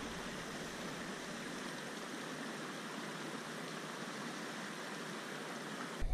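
Steady, even hiss of running water trickling among shoreline rocks.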